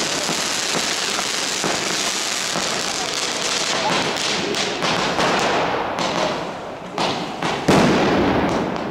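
Street fireworks: a continuous crackling hiss of burning fountains and rockets, then a run of separate firecracker bangs in the second half, the loudest about three-quarters of the way in.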